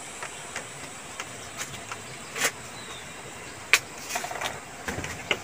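Faint steady outdoor hiss with scattered light clicks and taps, the sharpest about three and a half seconds in.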